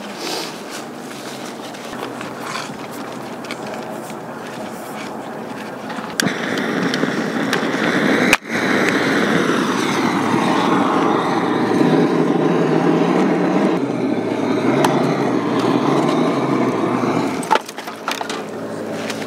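Hatchet splitting firewood into kindling, a few sharp knocks over a steady rushing noise that grows louder about six seconds in.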